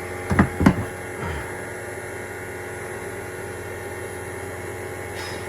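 Refrigeration vacuum pump running with a steady hum while it pulls a vacuum on a split-system air conditioner. Two knocks about half a second in and a softer one near one and a half seconds.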